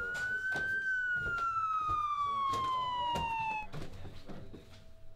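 Police siren wailing: one rise in pitch followed by a long, slow fall, cut off suddenly a little over three and a half seconds in. Scattered sharp clicks sound alongside it.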